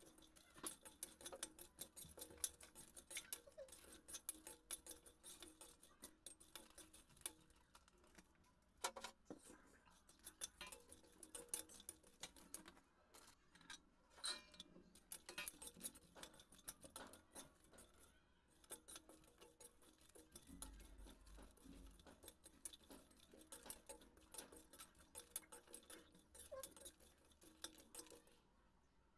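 Slotted steel spoon scraping and clinking against a stainless steel kadai while whole spices are stirred and roasted, a quick, irregular run of light metallic ticks with a few short pauses.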